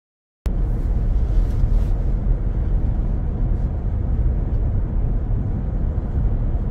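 Steady road noise inside a Tesla's cabin while driving at highway speed: tyre rumble and wind with no engine sound. It cuts in abruptly about half a second in, after total silence.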